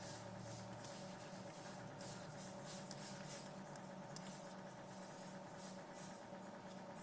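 Soft, repeated scraping and rustling of cut fruit pieces sliding out of a plastic bowl into a blender jar, a few times a second, over a faint steady hum.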